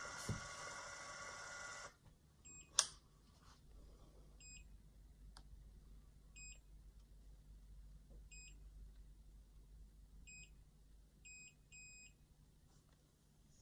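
Krullo automatic hair curler: its motor whines steadily as it winds the hair in and stops about two seconds in, followed by a sharp click. Then the curler gives short high timer beeps about every two seconds, coming closer together near the end.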